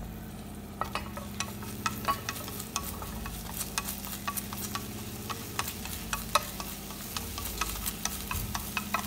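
Minced shallot frying in a little oil in a small nonstick pan, stirred with wooden chopsticks: scattered pops and crackles and light taps over a steady low hum, as the shallot is fried until fragrant.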